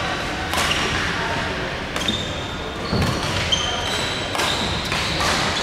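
Badminton rally: racket strikes on the shuttlecock, heard as sharp hits every second or so, with short high squeaks of shoes on the wooden court floor in between.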